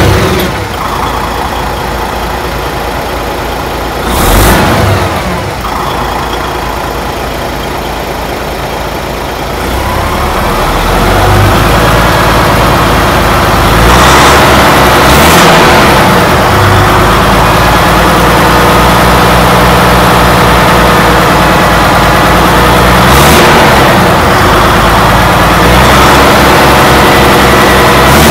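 DAF XF 106's PACCAR MX-13 six-cylinder diesel running, pulling harder and louder from about ten seconds in. Brief rushing sounds break in three times.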